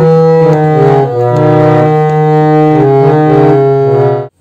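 Harmonium playing held chords that move to new notes every half second or so, then stopping abruptly near the end.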